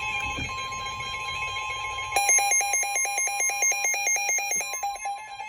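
Electronic alert tones from a weather alert radio: a steady tone, then from about two seconds in a fast warbling alarm of about seven to eight warbles a second. These are the alert signals that come before a severe-weather message.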